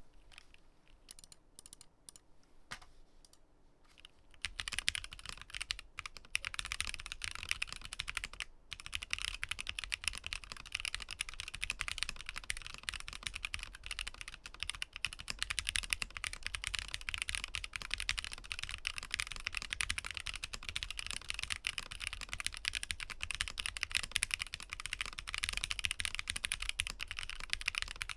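Typing sound test of stock Momoka Frog long-pole switches on an IV Works AV3 keyboard with an FR4 plate, Poron gasket mount and plate foam. It opens with a few light, scattered keystrokes, then about four seconds in breaks into steady, fast typing.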